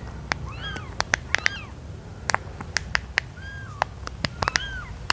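Silicone pop-it fidget toy being pressed bubble by bubble: sharp, irregular pops, about three a second, mixed with short high squeaks.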